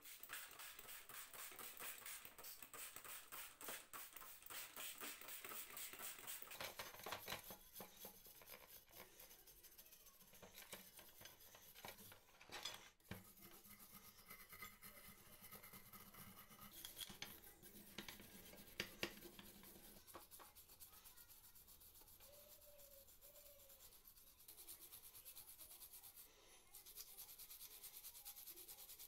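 Wire brush scrubbing rusty steel parts of a glazing point driver, quick back-and-forth scratching strokes, busiest in the first half. A couple of sharp clicks of metal knocking in the middle.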